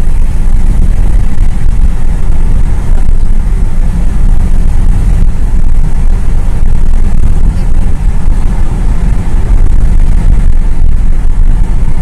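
Cabin noise of a car driving at highway speed: a loud, steady low rumble of road and engine noise inside the car.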